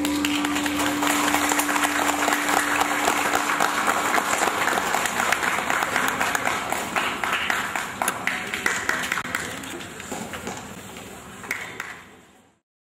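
Audience applause: a dense patter of many hands clapping that thins out over the last few seconds and then cuts off. A single held note of the dance music rings under the first few seconds and fades.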